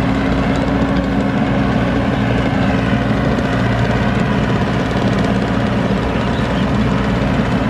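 Yanmar 850 combine harvester's diesel engine running steadily as the machine drives along, a low, even hum.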